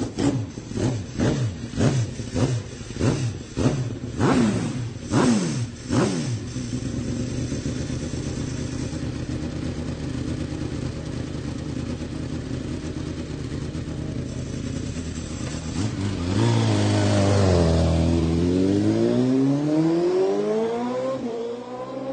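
Small youth ATV engines: a rapid series of throttle blips, about two a second, each rev falling straight back, then steady running, and near the end an engine easing off and then revving up again.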